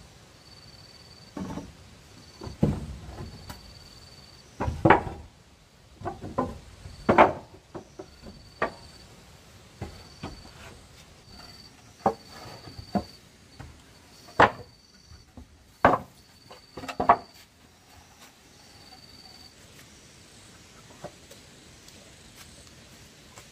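Old wooden planks knocking and clattering as they are lifted, dropped and stood against a plank wall: about fifteen irregular sharp wooden knocks, stopping about three-quarters of the way through.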